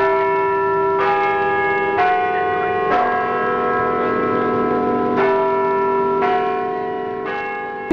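Church bells ringing: a strike of a different pitch about every second, with a short pause near the middle, each one ringing on under the next. The ringing fades toward the end.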